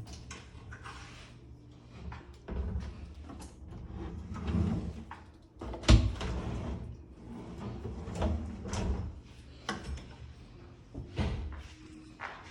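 A series of knocks, clicks and low rumbling handling sounds, with one sharp, loud click about six seconds in.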